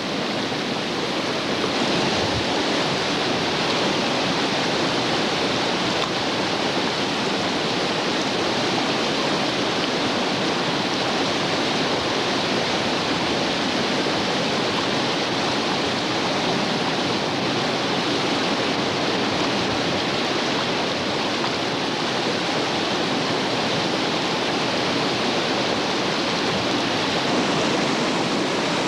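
Whitewater rapid on a creek: a steady, unbroken rush of churning water pouring over and around rocks.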